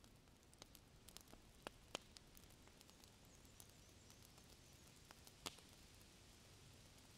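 Near silence with a few faint, sharp clicks and light handling noise from a dome tent's poles and fabric as the tent is pitched.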